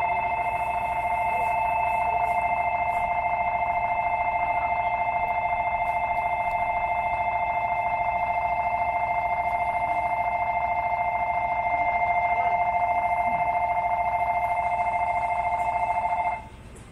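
Station departure bell ringing steadily at two pitches, then cutting off suddenly near the end. It is the signal that the train is about to leave.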